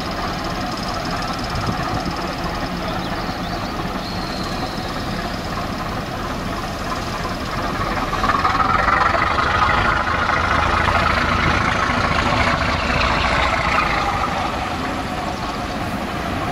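Class V65 diesel locomotive's engine running as the locomotive moves slowly along the track. About halfway through it grows louder and works harder for several seconds, then eases back.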